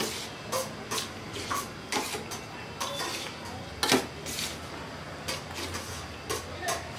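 Steel spoon clinking and scraping on a steel plate as rice is scooped up, in irregular strokes, with the loudest clink about four seconds in.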